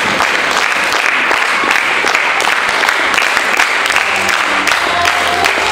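Audience applauding with steady, loud clapping from many hands.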